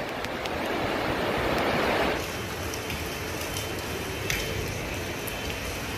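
Swollen floodwater rushing through a channel: a steady, even rush of water noise. About two seconds in, it gives way abruptly to a quieter, steady hiss.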